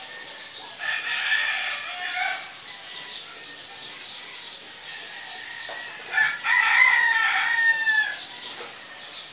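A rooster crowing: a first call about a second in, then a longer, louder crow about six seconds in that falls in pitch at its end.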